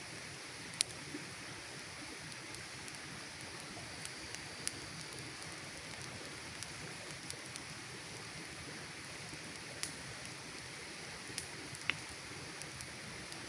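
Campfire burning: a steady hiss with sharp crackles and pops every second or so, the loudest one about a second in and another near the end.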